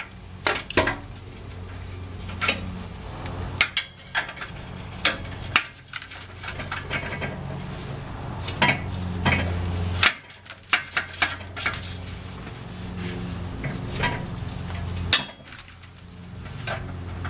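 Metal hand tools (socket, breaker bar, wrench) clinking against a rusted exhaust flange nut as it is worked loose and unscrewed: sharp metallic clinks at irregular intervals, over a low hum.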